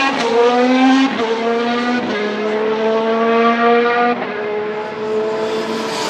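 Mercedes F1 W09's 1.6-litre turbocharged V6 hybrid engine accelerating hard as the car pulls away, its pitch climbing through each gear and dropping at upshifts about one, two and four seconds in.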